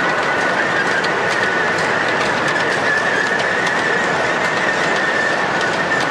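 O-gauge model freight train of tank wagons rolling past close by, its wheels clicking irregularly over the track, with a steady high-pitched whine.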